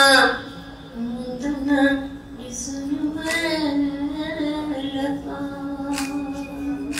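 An elderly woman singing a Sindhi song, holding long notes that slide slowly up and down in pitch.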